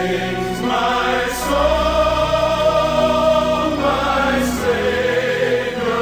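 Background music: voices singing a slow hymn in long held notes, the chord changing every second or two.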